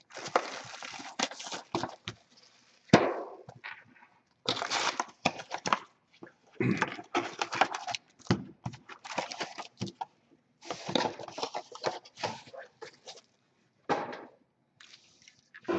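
Cellophane shrink wrap crinkling and a cardboard trading-card box being pulled open, then foil card packs rustling and tapping as they are lifted out and stacked on a wooden desk. The sound comes in irregular bursts with short gaps and a few sharp clicks.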